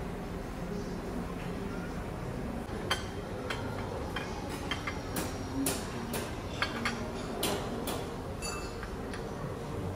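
Irregular light clicks and clinks, about a dozen, starting about three seconds in, over a steady low background hum.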